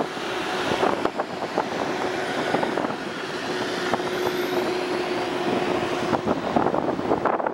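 Road and traffic noise heard from a car driving along a city street, with uneven knocks of wind on the microphone and a steady low hum for a few seconds in the middle.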